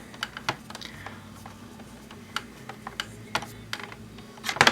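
Irregular light clicks and taps of plastic laptop parts being handled and fitted together, with a quick run of louder clicks near the end.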